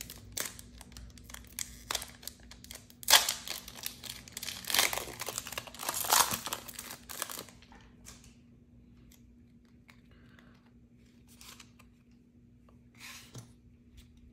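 Foil booster pack of trading cards being torn open and crinkled, with sharp tearing peaks about 3, 5 and 6 seconds in. It then goes quieter, with only a few faint clicks as the cards are handled.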